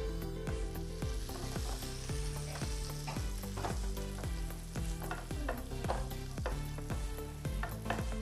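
Butter melting and sizzling in a hot nonstick frying pan, the hiss building in the first second as it starts to foam and then holding steady. A background music track with a regular low beat runs underneath.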